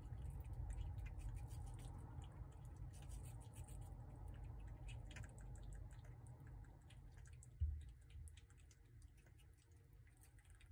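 A prairie dog chewing watermelon: faint, irregular wet clicking and smacking from its mouth, over a low steady rumble. A single dull thump about three-quarters of the way through is the loudest sound.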